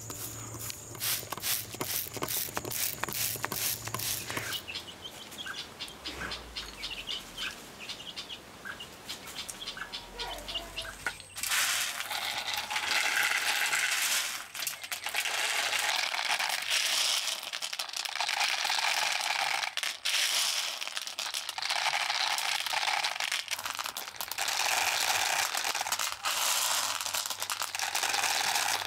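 Crickets and birds chirping faintly at first; then, about eleven seconds in, dried speckled beans rattle and pour in a clear plastic bag over a metal bowl, in repeated bursts of rattling with crinkling plastic.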